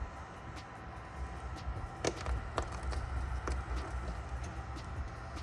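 Hands handling Pokémon trading cards and a booster pack: scattered light clicks and taps over a steady low hum.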